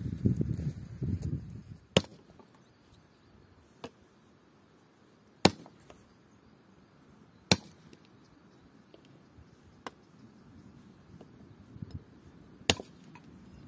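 A hatchet chopping dry dead branches on a wooden chopping block: about six sharp, separate chops a second or more apart, the loudest about 2, 5.5, 7.5 and 12.5 seconds in. A short stretch of rustling comes at the start.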